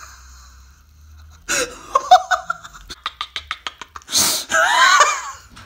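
A man's stifled laughter: a few short bursts of voice, then a quick run of short breathy snickers, then a louder burst of laughing near the end.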